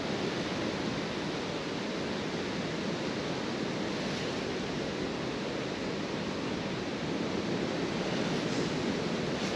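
Steady rushing noise of flowing river water, even throughout with no distinct events.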